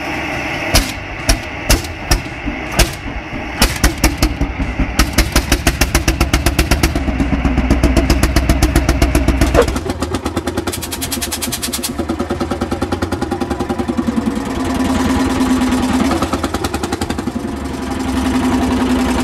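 Single-cylinder hot-bulb engines of vintage Orsi tractors. The first fires a few separate beats, then catches and picks up to a fast, even beat. About ten seconds in a second one runs at a steady beat with a hum that rises and falls a little.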